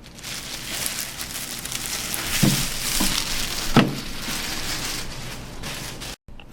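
Packaging rustling and crinkling as parts are handled, with two short knocks about a second and a half apart near the middle.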